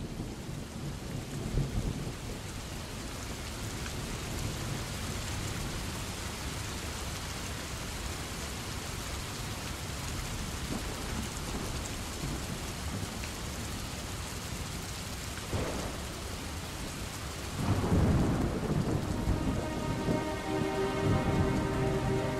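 Steady heavy rain with low rolls of thunder, a louder thunderclap rumbling about eighteen seconds in. Sustained music tones come in over the rain near the end.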